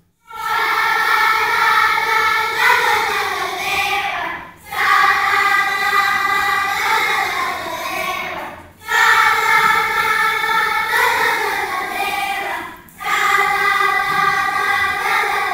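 First-grade children's choir singing a French song together, in phrases of about four seconds with short breaks between them.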